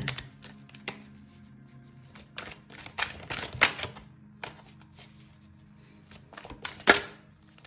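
A tarot deck being shuffled by hand: irregular runs of quick papery flicks and clicks, densest a few seconds in, with one sharp loud snap of the cards near the end. Faint background music runs underneath.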